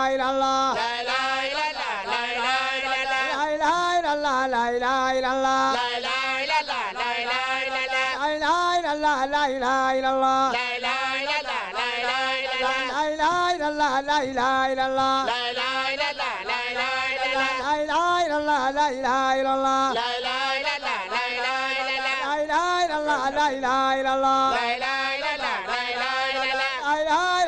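A single voice chanting Quranic recitation in long melodic phrases, with held notes that bend and ornament.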